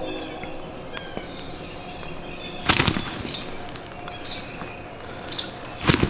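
Three loud bursts of rustling or flapping, the first about three seconds in and two more near the end, over songbirds chirping.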